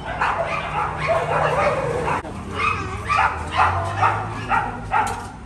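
Dogs barking and yipping, a quick run of short barks about two or three a second in the second half.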